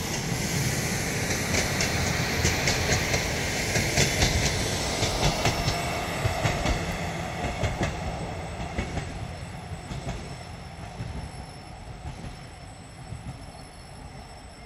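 RA3 diesel railbus pulling away on its run, its diesel engine rumbling and its wheels clicking over the rail joints. The sound fades steadily as the train draws off into the distance.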